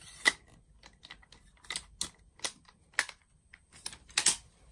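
A run of sharp mechanical clicks and clacks, about eight in all, the loudest just after the start: a VSR-10 bolt-action airsoft rifle being loaded with a BB and its bolt worked ready for a chronograph shot.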